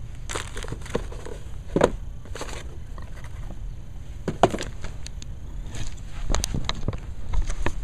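Small plastic building-toy pieces handled and sorted by hand: irregular clicks and clacks with bits of rustling, the sharpest clacks about two and four and a half seconds in.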